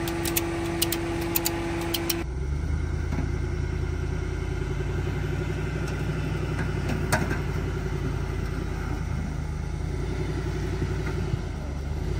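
A ratchet strap's handle clicking repeatedly for about two seconds. Then a pickup truck's engine running low and steady under light load as it slowly tows another pickup on the strap, with one sharp click about seven seconds in.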